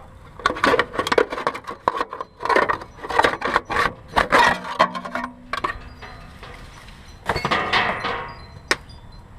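Sheet-metal heat shield clattering and scraping against engine-bay parts as it is wiggled free, in quick rattles with a brief metallic ring about five seconds in. A longer scrape follows, then a single sharp click near the end.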